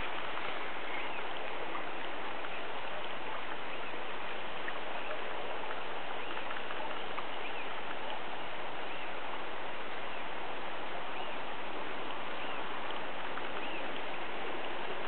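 River water rushing steadily over a shallow riffle, with faint short high chirps above it.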